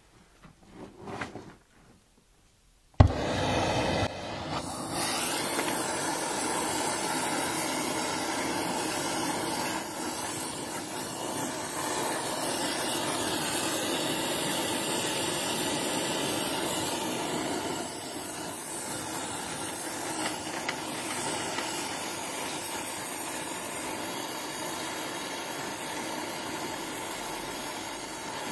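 Donmet 132A micro gas-welding torch lit with a sharp pop about three seconds in, then its flame hissing steadily as it welds a heating pipe, a little quieter in the second half.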